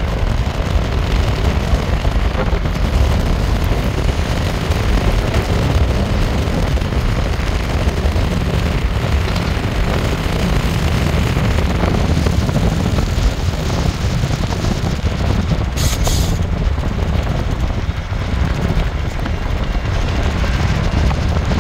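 Steady low rumble of road and wind noise from a moving car, with wind buffeting the microphone. A brief hiss comes about three-quarters of the way through.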